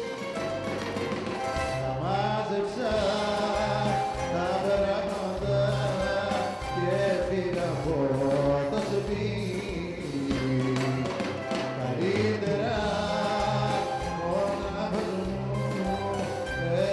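Live Greek popular song: a male voice sings a gliding melody over bouzouki and band accompaniment with a repeating bass line.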